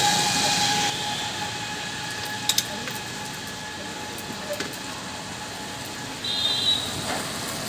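Electrical arcing from short-circuited, burning wires on a transformer pole: a steady hiss, with two sharp snaps about two and a half seconds in. A brief high-pitched tone sounds near the end.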